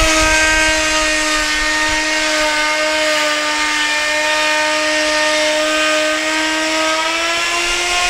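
Handheld electric router running at speed as it cuts a decorative groove along a wooden board: a steady high whine over a cutting hiss, its pitch sagging slightly under the load of the cut and rising again near the end.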